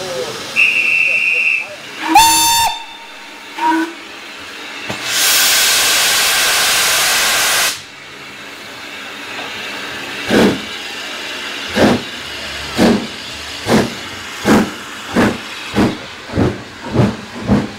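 Departure of a steam locomotive. A guard's whistle sounds once, the engine's steam whistle gives two short blasts, and steam hisses loudly for about three seconds. Then the exhaust chuffs start slowly and quicken steadily as the locomotive pulls its train away.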